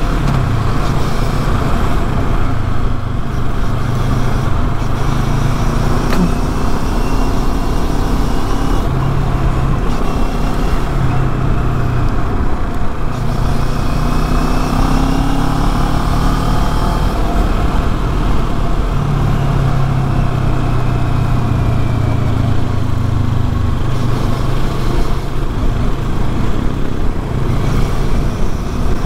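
CF Moto NK 400's parallel-twin engine through its stock exhaust while riding at moderate road speed, its pitch climbing and dropping again and again as the bike accelerates, shifts and eases off.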